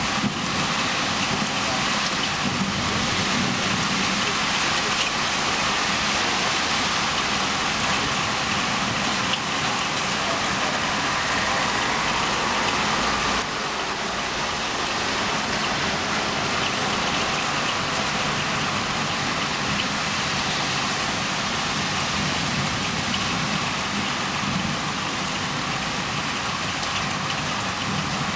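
Heavy rain falling steadily in a thunderstorm, a dense even hiss that drops a little in level about halfway through.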